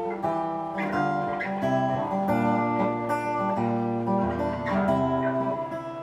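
Solo acoustic guitar playing an instrumental passage: plucked notes and chords ring on over changing low bass notes.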